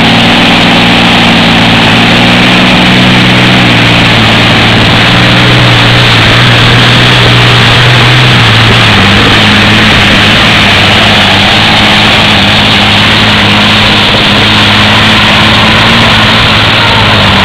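Very loud, steady engine of a modified competition pulling tractor running at full power as it drags the weight sled down the track.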